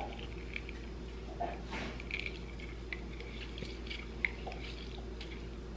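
A lime being squeezed in a handheld citrus press: faint squishing and juice dripping, with a few small clicks, over a steady low hum.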